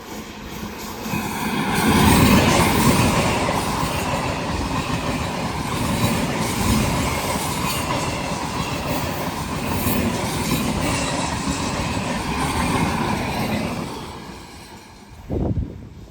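An Indian Railways train running past on a tight curve: the rumble and clatter of its wheels on the rails, with wheel squeal from the sharp bend. It builds up about two seconds in, holds steady, and fades away near the end.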